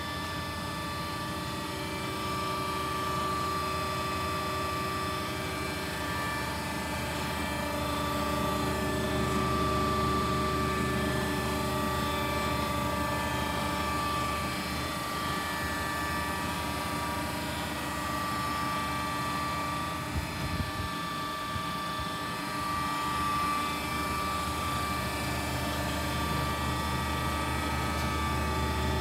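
Polar N92 Plus paper guillotine switched on and running idle: a steady machine hum with several constant tones. A few faint clicks come about twenty seconds in.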